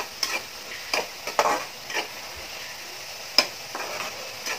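A slotted metal spatula scrapes and knocks irregularly against a metal kadhai as it stirs a pan of mustard greens (sarson ka saag), with one sharper knock about three and a half seconds in. A faint steady sizzle from the greens cooking runs underneath.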